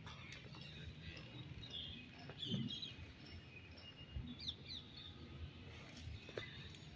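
Wild birds chirping faintly: scattered short chirps, with two quick falling whistles about halfway through, over a low background rumble.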